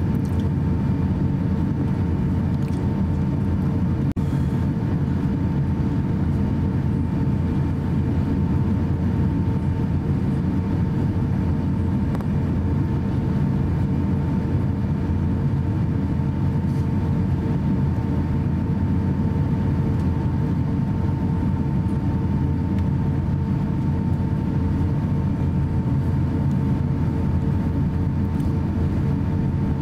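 Cabin noise inside an Airbus A350-900 taxiing: a steady low rumble from the Rolls-Royce Trent XWB engines at taxi power, the air conditioning and the rolling gear, with a constant hum over it.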